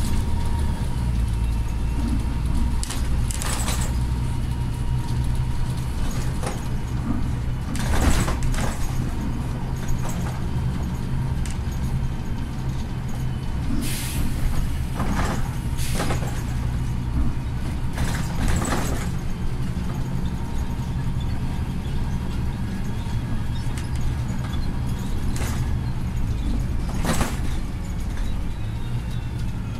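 Interior of a moving Volvo 7000 city bus: a steady low engine drone with a faint steady whine. Short knocks and rattles from the body and fittings sound several times.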